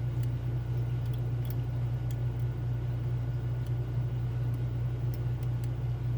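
Steady low hum, with faint irregular metallic ticks of a lock pick and tension wrench working the pins of a Schlage Primus lock cylinder.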